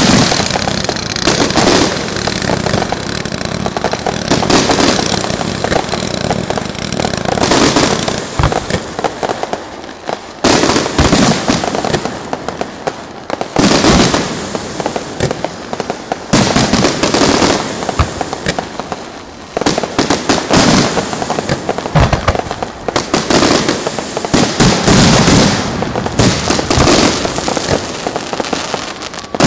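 Electrically fired temple firecrackers and fireworks going off: a dense, continuous crackle of rapid bangs, swelling into louder surges every few seconds.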